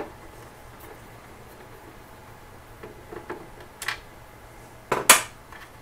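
Screwdriver working a screw out of a laser printer's plastic casing: a few light clicks, a sharper one near four seconds in, and a louder click about five seconds in.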